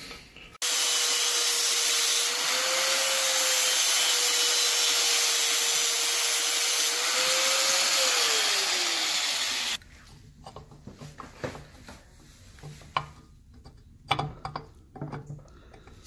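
Angle grinder cutting a piece of steel pipe to reshape a press brace: a loud grinding hiss over the motor's steady whine for about nine seconds. The whine lifts briefly twice and then falls as the grinder winds down, the grinding stops suddenly, and light clinks and knocks of handling follow.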